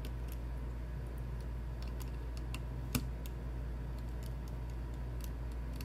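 Faint, scattered light ticks and clicks of small hand tools on tiny screws and a small metal cover plate inside an opened MacBook Pro, with one sharper click about three seconds in. A steady low hum runs underneath.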